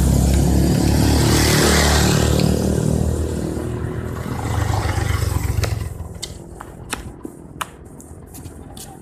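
A bus passing close by: loud, low engine rumble with road noise, surging once more before fading away about six seconds in. A few sharp clicks follow in the quieter remainder.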